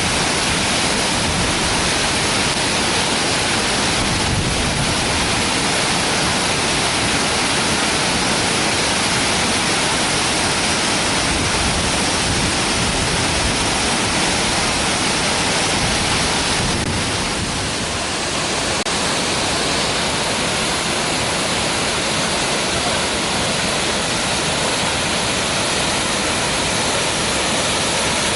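Waterfall pouring, a steady loud rush of falling water, dipping briefly about two-thirds of the way through.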